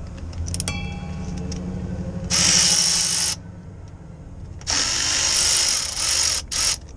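Power ratchet running in two bursts on the fittings of a Haldex air compressor, the first about a second long and the second about two seconds with a brief stop near its end. A few metallic clicks come just before, over a low steady hum.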